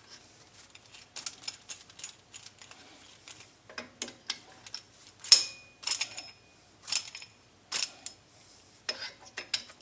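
Metal clinks and taps from a steel C-clamp being set against a brake caliper's pistons, a string of separate knocks, several ringing briefly, the loudest a little past halfway.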